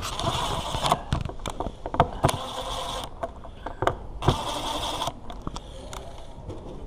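Mechanical scraping and whirring noise in two stretches, about three seconds and then about one second long, with sharp clicks and knocks in between.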